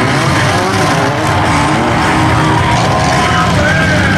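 A race car's engine running as it passes at speed, mixed with background music.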